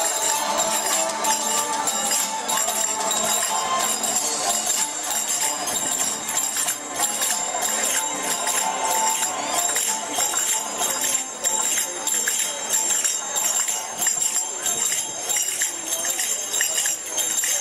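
Rapid, steady metallic clinking and ringing of belly dancers' finger cymbals (zills) over belly dance music played through speakers.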